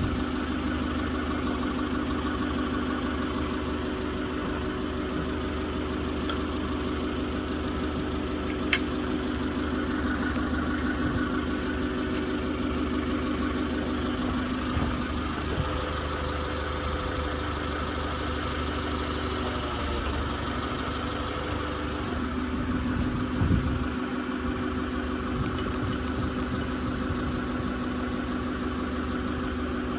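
Forklift engine idling steadily, its note shifting briefly around the middle, with a sharp metallic click about a third of the way in and a short knock about two-thirds through.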